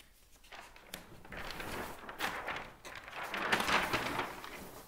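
Large sheet of chart paper rustling as a flip-chart page is lifted and turned over, loudest about three and a half seconds in.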